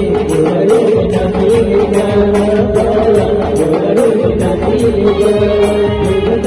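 Adivasi band music in kherva dance rhythm: a sustained, wavering melody line over a steady percussion beat of about four high strikes a second.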